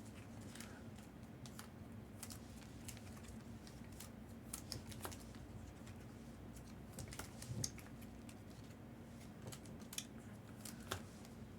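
Faint, scattered clicks and light scrapes of trading cards being handled and sorted, with a few slightly louder ticks in the second half.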